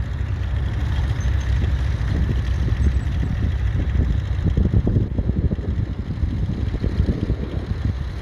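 Ferguson TEF20's 2.1-litre four-cylinder diesel engine running steadily.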